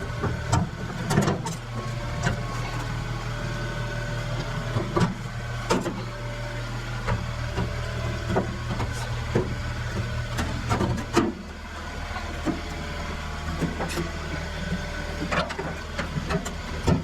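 Workshop handling noises: irregular clicks and knocks over a steady low hum, which shifts slightly about seven and eleven seconds in.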